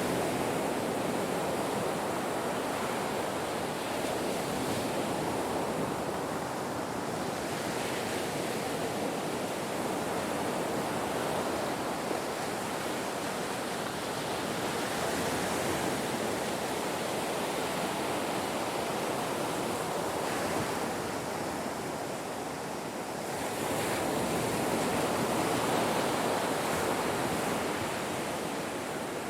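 Ocean waves breaking and washing on a shore, a continuous surf wash that swells and eases, with a bigger swell of surf a little past the middle.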